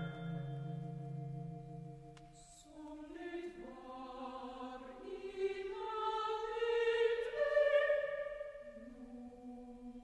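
Contemporary classical music for choir and orchestra: sustained held chords, then from about three seconds in, voices enter one after another on rising notes. The sound swells to its loudest about eight seconds in, then thins to a single low held note.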